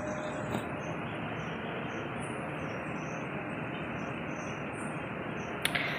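Steady outdoor background hiss, with faint scattered high chirps of crickets.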